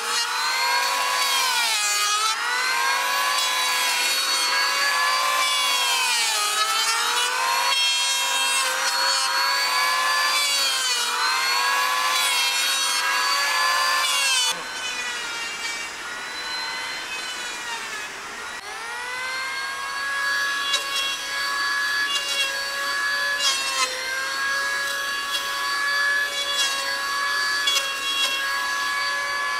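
Electric hand planer running and shaving a timber beam, its motor whine dropping in pitch each time the blade bites into the wood and rising again between strokes, every second or two. About halfway through it turns quieter and steadier.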